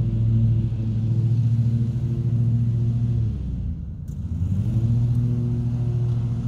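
Husqvarna YTH24V54 riding lawn mower's 24-HP V-twin engine running steadily at mowing speed; about two-thirds of the way through, its pitch sags and then climbs back up.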